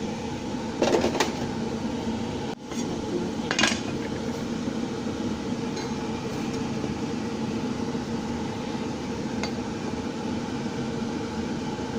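Kitchenware clinking a few times, twice within the first four seconds, over a steady mechanical hum.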